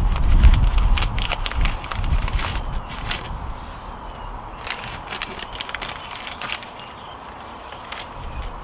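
Crinkling and crackling of a coffee bag being handled and put into a ceramic mug, with a few light clicks against the mug. The noise is busiest in the first few seconds and thins out after about four seconds.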